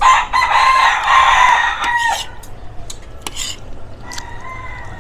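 A rooster crowing loudly: one long crow of about two seconds that ends on a falling note, followed by a fainter crow near the end.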